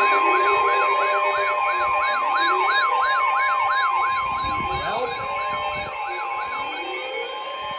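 A steady 1050 Hz NOAA Weather Radio warning alarm tone sounding together with fast-wavering electronic siren sweeps, about three a second, which fade out after about five seconds.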